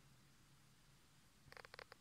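Near silence with a faint steady low hum. About a second and a half in comes a quick run of several small clicks.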